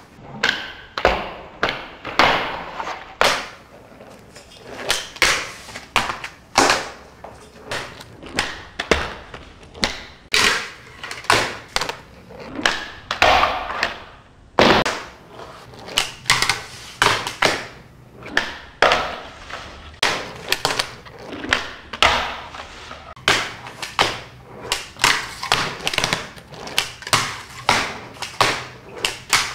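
Handboard being flipped with the fingers and landed onto a small rail and the countertop: a quick, irregular run of sharp clacks and taps, with short scraping grinds and slides between them, as kickflips and switch flips go into grinds back to back.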